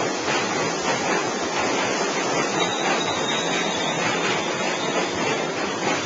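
Steady rush of wind over the microphone of a handheld camera while cycling, a constant noise with no breaks.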